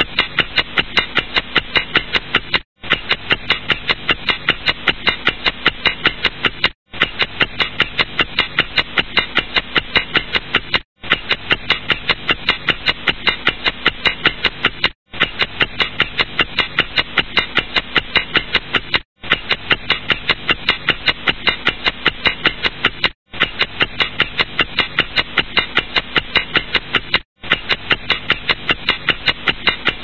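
Clock ticking with rapid, even ticks, several a second, over a faint steady hum. The ticking drops out in a short gap about every four seconds, as a repeating loop.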